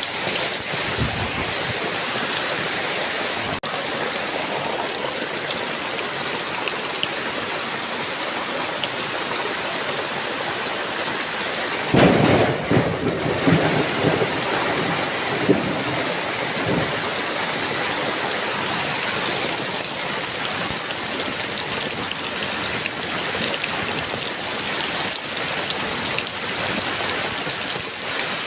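Heavy rain falling steadily, with a sudden clap of thunder about twelve seconds in that rumbles on for a few seconds in uneven peaks.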